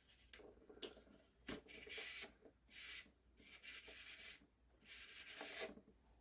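Cardboard scraped across a CPU's heat spreader to lift off old thermal paste, in a series of short scraping strokes.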